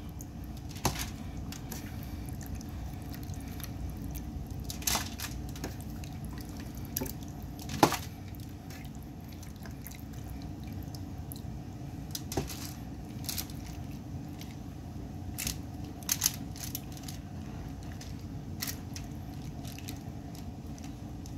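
Marinated chicken wings being laid one by one into a foil-lined, oiled baking pan: soft wet handling sounds and scattered light taps, with a sharper tap about eight seconds in, over a steady low hum.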